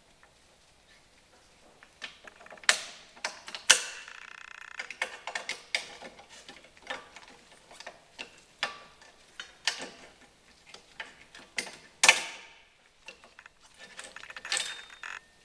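Hand tools on drum brake parts: sharp metal clinks and knocks at irregular moments, and a ratchet wrench clicking rapidly for about a second, about four seconds in.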